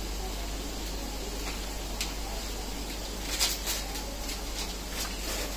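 Steady background hiss and hum with a few small, sharp clicks and taps, the loudest a cluster about three and a half seconds in: a table knife clicking against a plastic butter dish and bowl as butter is cut into small pieces and dropped into the batter.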